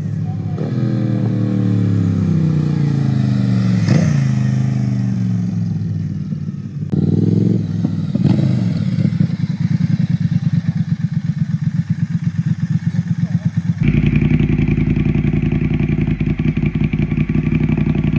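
Triumph Thruxton RS's 1200 cc parallel-twin through Weslake cone shorty slip-on mufflers, no decat. It runs past with the note falling in pitch. After a cut it gives a brief rev and rides slowly, and about three-quarters of the way through it idles steadily close up.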